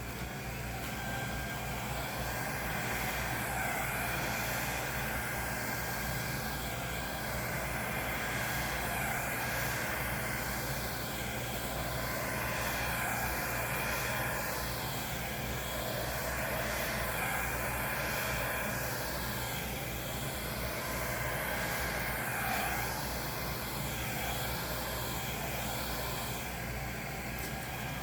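Compact 1000-watt travel hair dryer running steadily on its low, cool setting, a rush of air with a faint motor whine, rising and falling a little in level as it blows poured acrylic paint across the canvas.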